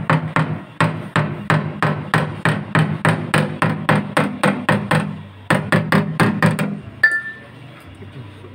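Body hammer beating a dent out of a Hyundai Accent's sheet-metal rocker panel: rapid, even strikes about four or five a second. They pause briefly about five seconds in, resume for a few more, and end with a single hit about seven seconds in, as the deep dent is worked level.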